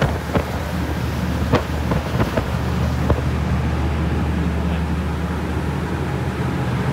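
A passenger ferry's engines running steadily at cruising speed, a low drone, under the rush of the wake and wind buffeting the microphone. A few sharp pops come in the first three seconds.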